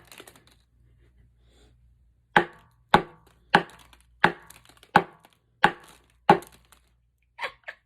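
A small mallet striking a hard chocolate bash cake shell again and again: a knock, then a run of seven quick, even blows, then two lighter taps. These are blows meant to break the shell open to reach the candy inside.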